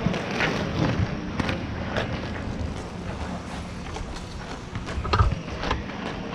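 Wind buffeting a helmet camera's microphone while skating over asphalt, over the low rumble of the inline skate wheels. Scattered sharp clicks of sticks and ball, with one louder knock about five seconds in.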